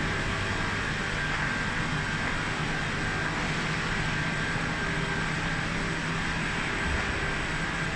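Glass tempering furnace line running: a steady even hiss of machine and air noise with a low hum and a thin high whine.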